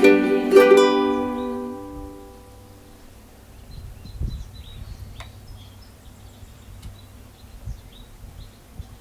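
Ukulele ensemble's final strummed chord ringing out and fading away over about two seconds. After it, faint bird chirps over quiet background noise, with a few soft bumps.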